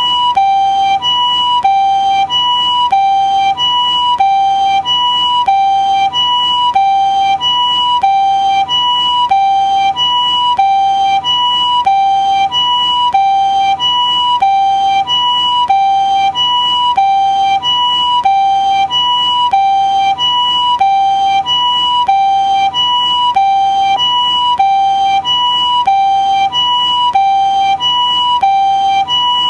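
Japanese ambulance siren sounding its two-tone "pii-poo" pattern: a higher and a lower tone alternating evenly, about one high-low pair every 1.3 seconds, steady in pitch and level.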